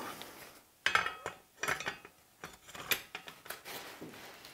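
Irregular metallic clicks and clinks as an Arca-Swiss rail platform is slid onto a rifle chassis's Arca-Swiss forend rail.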